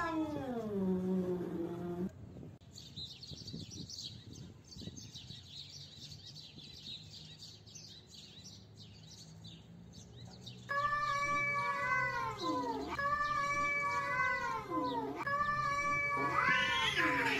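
Domestic cats caterwauling: a long yowl sliding down in pitch, a quieter stretch of faint high chirps, then a run of loud drawn-out wavering yowls, each swooping down and back up in pitch, ending in a rising wail. This is the threat yowl of cats squaring off.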